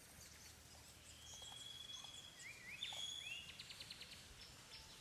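Faint background birdsong: a held high whistle, then a few quick rising chirps, then a fast run of short notes about three-quarters of the way in.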